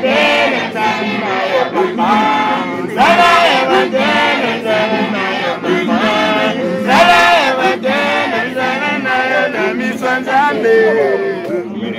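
A group of voices singing together, a chant-like hymn with a loud phrase returning about every four seconds.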